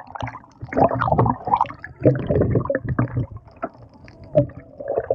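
Muffled underwater sound from a camera held below the surface: water gurgling and sloshing in irregular bursts.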